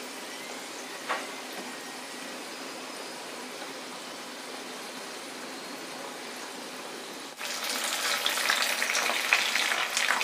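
Oil sizzling steadily around wheat-flour rolls shallow-frying in a pan, with a single light tap about a second in. About seven seconds in, the sizzling turns abruptly louder into a dense crackle.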